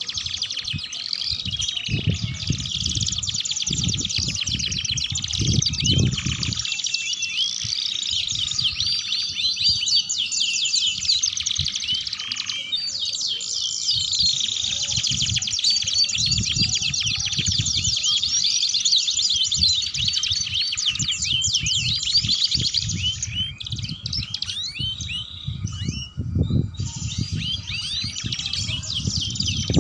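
Domestic canaries singing continuously in fast, high trills and rolls, with a short break near the end. Low rumbling runs underneath in patches, strongest a few seconds in and again near the end.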